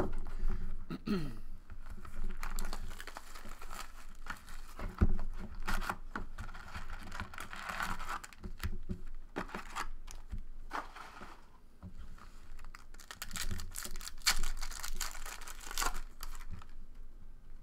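Trading-card box being opened and a foil card pack torn open and crinkled, with scattered taps and clicks from handling the cardboard and cards.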